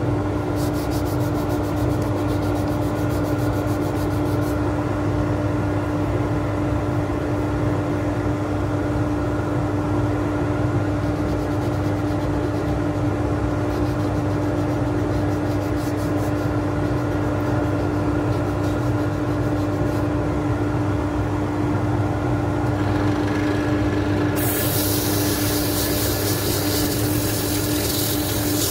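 Wood lathe running steadily with a constant motor hum while 120-grit sandpaper rubs against the spinning oak handle. The sanding hiss gets louder and brighter near the end.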